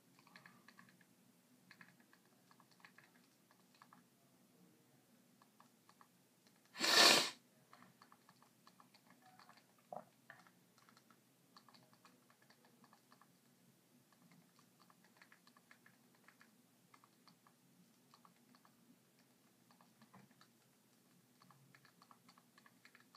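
Faint, irregular tapping clicks of typing on a phone, with one short, louder burst of noise about seven seconds in.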